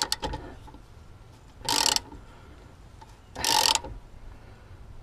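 Hand ratchet clicking in two short quick runs about a second and a half apart, as the handle is swung back between pulls on a tight U-bolt nut on a leaf-spring rear axle.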